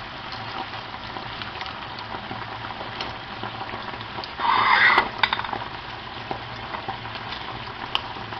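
Seafood frying in hot oil in a pan: a steady sizzle with scattered crackles. About halfway there is a brief louder rush, and there are a few sharp clicks of a utensil against the pan.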